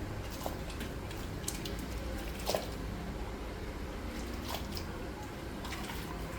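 Wet squishing as raw octopus is handled in a cooking pot, with a few short, scattered clicks and a steady low hum underneath.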